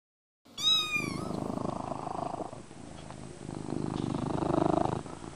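A domestic cat's short meow, followed by steady purring that swells twice.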